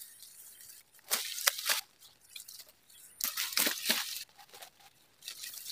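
Grass and plant stalks rustling and crunching as they are handled and pulled, in two short irregular bursts, one about a second in and another around three seconds in.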